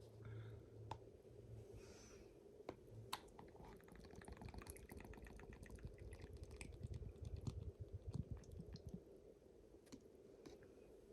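Faint, light clicks and crackles of a plastic smoothie container being handled, coming thickly and rapidly for a few seconds in the middle, with a few soft low thumps.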